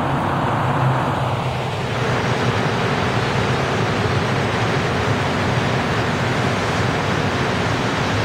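Montreal Metro train running alongside the platform on its rubber tyres: a steady, loud noise with a low hum running through it.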